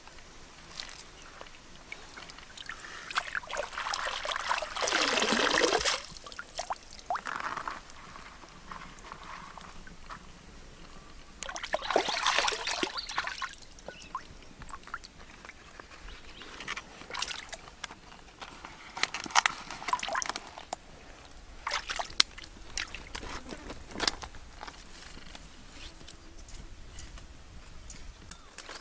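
Water sloshing and pouring in a few separate bursts as things are rinsed by hand in a river, with splashes, drips and small sharp clicks in between.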